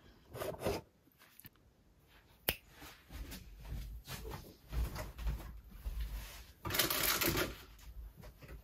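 Bedding being handled as a bed is made: a sharp click a couple of seconds in, then soft thuds and rustling of the duvet and pillows, with a louder rustle a little before the end.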